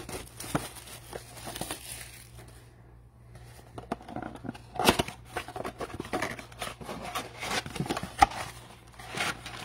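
A cardboard trading-card box being opened by hand and its foil card packs pulled out: crinkling and rustling with scattered sharp taps and clicks from the cardboard.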